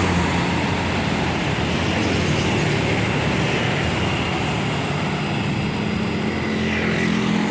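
Steady roadside traffic noise: tour buses driving past, with the low hum of a heavy diesel engine under tyre and road noise.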